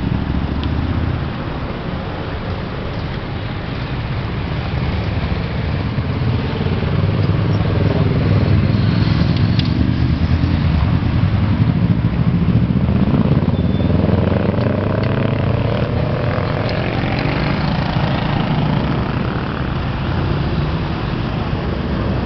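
Road traffic: motor vehicles passing with a steady low rumble, and an engine note that rises and then falls as a vehicle goes by in the middle.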